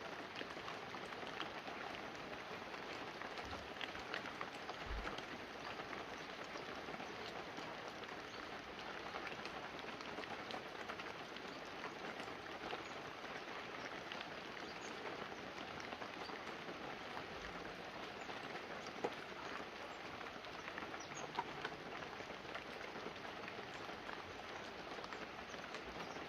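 Light, steady rain falling on banana leaves and a roof, a continuous patter with many separate drops ticking and a few sharper drops in the second half.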